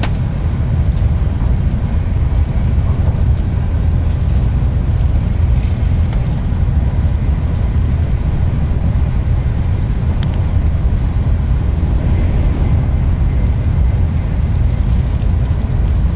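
Tokaido Shinkansen train running at speed, heard as a steady low rumble from inside the passenger cabin.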